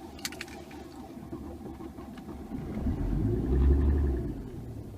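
A diesel engine being cranked on its starter in deep frost. The rumble grows louder and deeper for about a second and a half from around three seconds in, then dies away near the end: the first start attempt fails.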